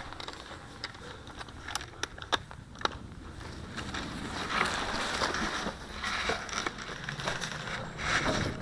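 Rustling and crunching of movement through dry brush and leaves, getting louder from about four seconds in, with several sharp clicks in the first three seconds.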